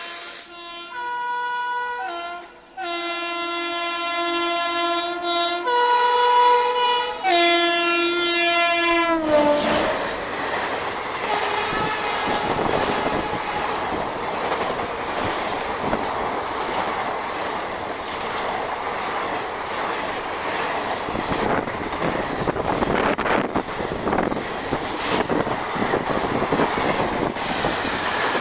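A WAP-7 electric locomotive's horn sounds in a series of about five blasts over the first nine seconds, the last one sliding down in pitch as the locomotive passes. Then the express's coaches rush by with a steady rumble and the clickety-clack of wheels over rail joints.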